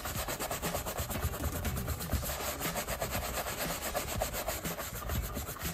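A hand rubbing and polishing cream into a black leather loafer in quick, even back-and-forth strokes.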